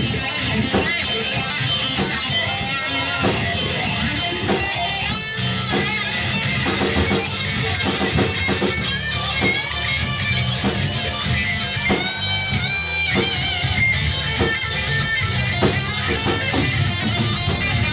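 Live rock band playing an instrumental break: electric guitar lead lines with bent notes over bass and a drum kit.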